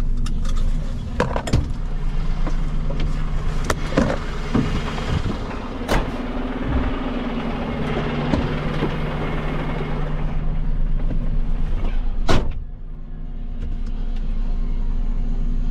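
Refuse truck's diesel engine idling steadily, with scattered clicks and knocks. A loud slam comes about twelve seconds in, after which the sound is more muffled, as when the cab door shuts.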